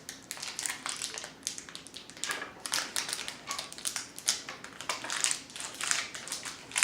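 Putty being squeezed and worked by hand, making a quick, irregular run of small sticky clicks and crackles.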